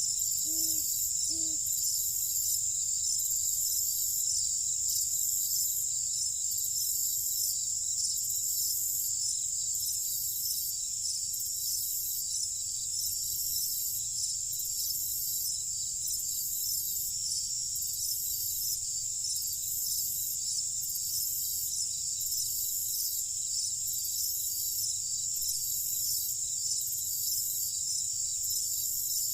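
A night chorus of crickets, a dense steady high-pitched chirring whose highest notes pulse slowly and evenly, about once a second. A couple of short, low calls sound in the first second or two.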